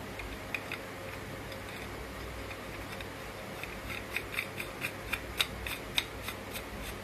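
A raw 3D-printed plastic nut being screwed by hand onto a printed threaded bolt: light plastic clicks and ticks as the threads turn, two near the start and a quick irregular run of about a dozen in the second half, over a steady low hiss.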